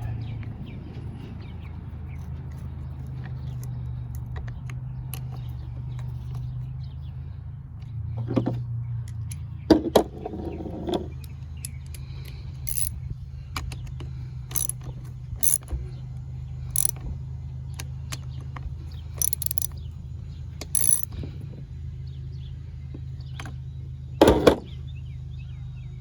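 Small metal clicks and clinks of hand tools and chainsaw parts being handled as a Poulan Pro chainsaw is taken apart, over a steady low hum.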